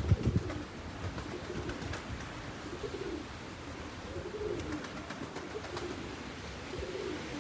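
Strong wind buffeting the microphone in gusts, with a series of short, low moaning or cooing tones repeating every second or so.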